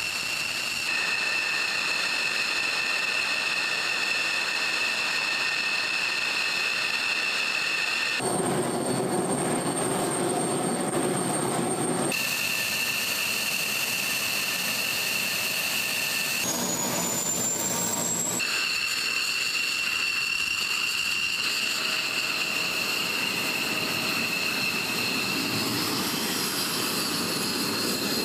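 F-16 fighter's jet engine running on the ground: a steady high-pitched whine made of several whistling tones over a rushing noise. The mix changes abruptly a few times, with a short rising tone a little past the middle.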